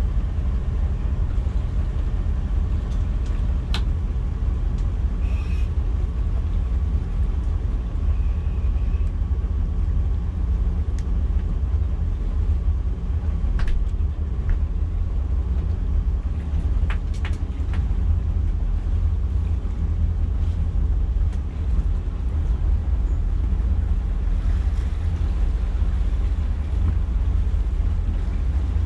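Twin MerCruiser 7.4-litre V8 inboard engines running steadily at low manoeuvring speed, a deep, even rumble, with a few faint clicks.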